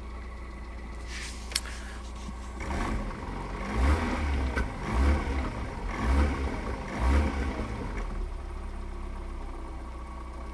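Lada Kalina 16-valve engine idling, blipped four times around the middle and settling back to idle. The owner hears a faint, occasional tapping from the hydraulic valve lifters, left after the oil pickup's O-ring was replaced.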